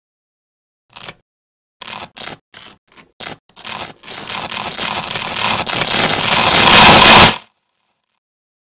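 Velcro hook-and-loop fastener ripping apart: single short rips, then quicker ones, merging into one long continuous rip that grows louder and stops suddenly near the end.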